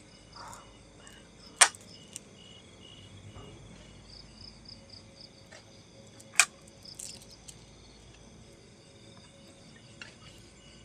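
Crickets chirping in a steady pulsing chorus, broken by two sharp, loud clicks about five seconds apart and a few fainter ones.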